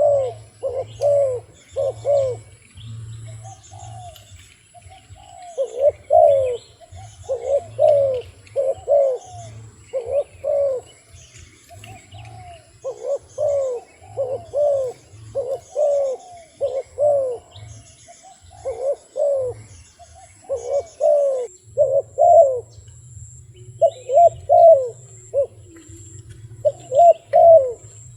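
Wild dove cooing over and over, in runs of several short coos that each fall in pitch, with brief pauses between runs.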